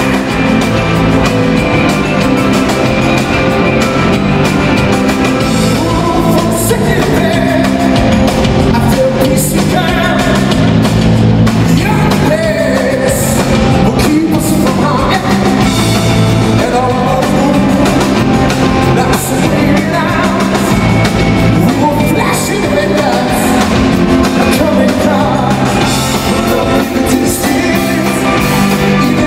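Live rock band backed by an orchestra, with sung lead vocals over drums, guitars and strings, played loud in an arena.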